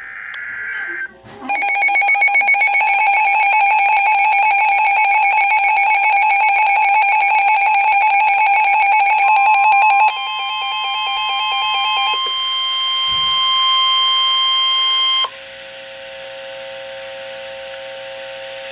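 Emergency alert tones announcing a severe thunderstorm warning. A fast-pulsing electronic alarm sounds first. About ten seconds in it gives way to steady continuous tones, and about fifteen seconds in these switch to a quieter chord of steady tones.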